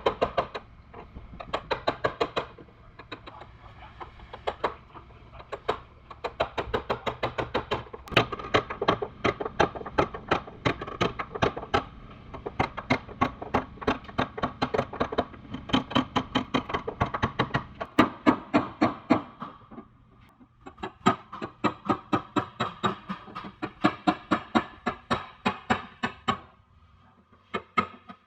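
Body hammer striking the steel of a car's rear quarter panel against a flat bar, in rapid, even taps of about five a second, knocking out the remaining dent after pulling. The tapping pauses briefly about 20 seconds in, then starts again.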